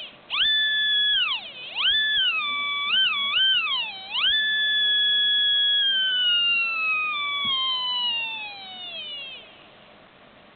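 Tiny 3.2 x 8 mm cell-phone vibration micro motor spinning at very high speed, screaming like a dental drill with a high whine. Its pitch dips and climbs back several times as the speed changes. After about six seconds it winds down in a long falling whine that fades away.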